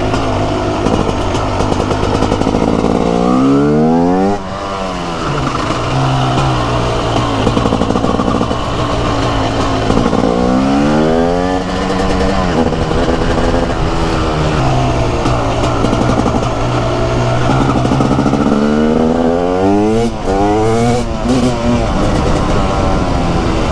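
TM SMR 300's two-stroke single-cylinder engine being ridden: it revs up steeply and drops back three times, about four, eleven and twenty seconds in, with steadier running between the pulls.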